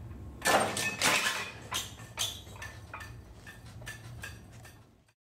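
Steel-plate test weight dropped in a fall-arrest test: two loud metallic crashes about half a second and a second in, then a string of lighter metallic clanks and rattles that die away. A steady low hum runs underneath.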